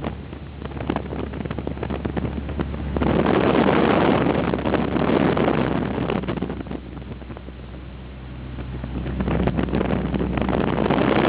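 Wind gusting on the microphone, swelling and easing over a few seconds at a time, over a steady low hum.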